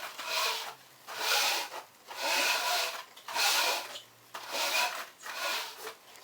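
Regular rubbing or scraping strokes, about one a second, each lasting most of a second.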